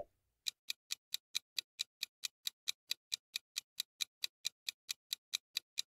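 Countdown timer sound effect: a steady, even clock-like ticking at about four and a half ticks a second, starting about half a second in.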